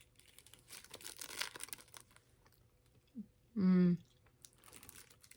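Mini fruit roll-up being peeled and chewed close to the microphone: two spells of crackly, sticky noise, with a short voiced hum in between.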